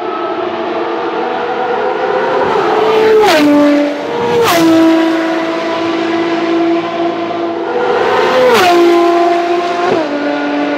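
Ferrari FXX K's V12 at full throttle as the car passes and accelerates away, pitch climbing through each gear and dropping at every upshift. Several quick upshifts, three of them marked by a sharp crack.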